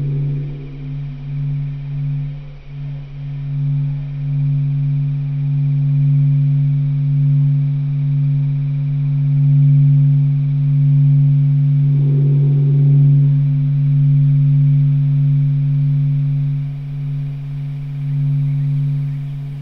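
A steady low droning tone with a fainter overtone above it, slowly swelling and ebbing in loudness. A brief wavering higher sound passes over it at the start and again about twelve seconds in.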